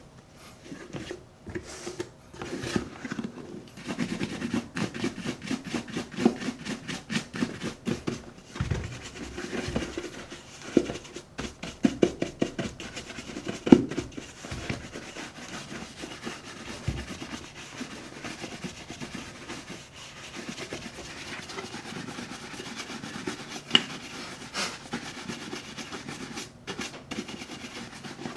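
Soft cashmere shoe brush swept rapidly back and forth over a leather boot in quick, even rubbing strokes, brushing up a shine after cream and buffing. The strokes are louder and denser in the first half and lighter in the second.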